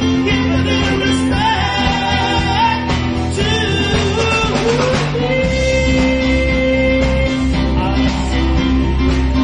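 Live rock band playing with electric guitar, electric bass, keyboard and drums, the bass line shifting to a lower note about halfway through.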